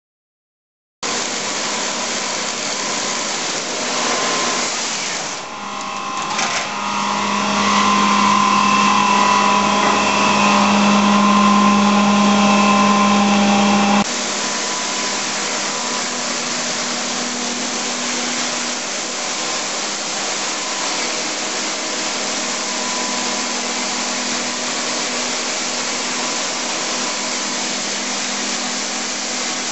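A web-fed label printing machine running, its paper web feeding over the rollers: a steady mechanical whir with a low hum and a fainter, higher whine. It drops abruptly to a slightly quieter, even run about halfway through.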